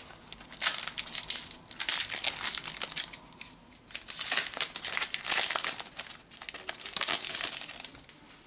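Foil wrapper of a Panini Adrenalyn XL trading card pack crinkling as it is handled and opened, in two spells of dense rustling, the second starting about halfway through.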